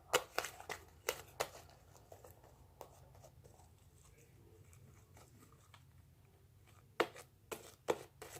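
Fluffy slime being kneaded by hand, giving faint sticky clicks and pops: a run of them at the start, then a quiet stretch, then more near the end.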